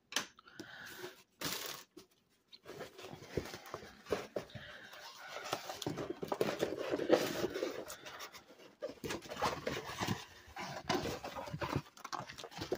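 Rustling and crinkling of a rolled diamond painting canvas and its glossy protective film as it is unrolled and handled, an irregular papery crackle that grows a little louder about halfway through.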